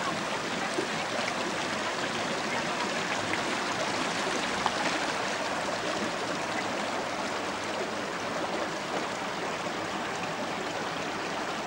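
Steady rushing of a glacial meltwater stream.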